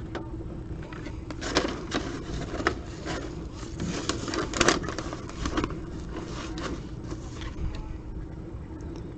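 Trading card packs and cards being handled: irregular scrapes, rustles and clicks of card stock and packaging, over a steady low hum.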